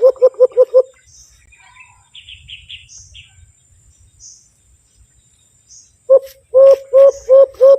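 Rapid series of hollow hoots blown into cupped hands, imitating the call of the kulo-kulo (alimokon) to lure it closer, about five hoots a second. The hooting breaks off just under a second in and starts again about six seconds in; in the pause, faint high bird chirps.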